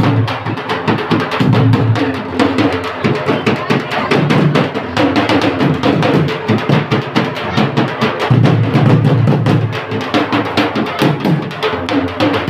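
Several large double-headed drums beaten with sticks in a fast, continuous rhythm, with deep bass beats under dense, rapid strokes.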